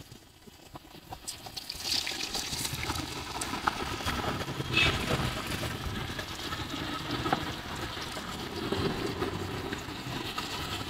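Hot oil sizzling and bubbling in a large frying pan used for deep-frying potato chips, with scattered small crackles.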